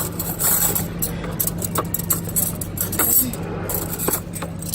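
Scattered light clinks and clatters of tableware and trays over a steady low mechanical hum, typical of a cafeteria serving counter.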